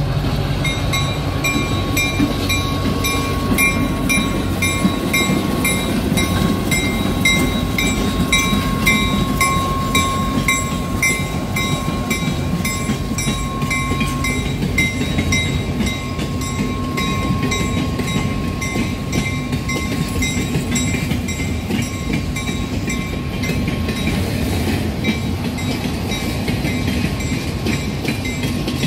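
GP11 diesel locomotive and a string of loaded cane cars rolling past close by, with a steady rumble and wheel clatter on the rails. A bell rings quickly over it, about two strikes a second, and fades after about halfway.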